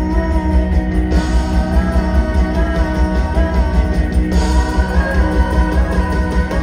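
Live rock band playing through a loud PA: electric guitars, bass, drums and keyboards together over a heavy, pulsing low end, heard from the audience.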